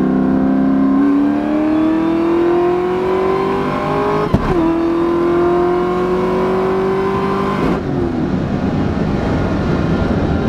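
2003 Mustang SVT Cobra's supercharged 4.6-litre V8 accelerating hard, heard from inside the cabin. The engine pitch climbs steadily, drops sharply at an upshift about four seconds in, then climbs again for a few more seconds before the pull ends.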